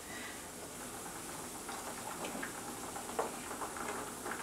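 Steady hiss of a pot of chicken boiling on the stove, with a few faint clicks of a metal fork against a plate as kabocha squash is mashed.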